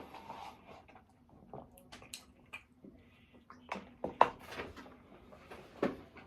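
Close-miked eating: irregular wet smacks and clicks of chewing, the sharpest a little after four seconds in.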